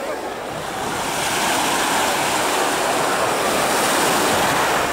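Steady wash of small sea waves breaking in the shallows.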